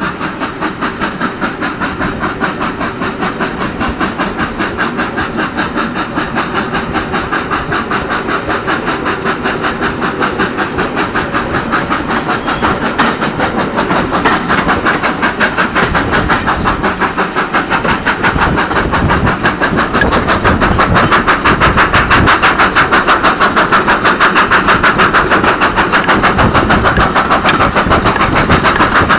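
GWR Manor-class 4-6-0 steam locomotive 7828 Norton Manor working its train, its exhaust a quick, even chuffing that grows steadily louder, with the carriage wheels running on the rails, heard from an open carriage window behind the engine.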